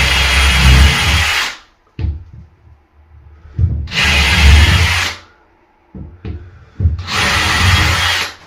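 Power drill boring pilot holes into a fire door for the door closer's screws: three runs of about a second and a half each, with short knocks in the gaps between them.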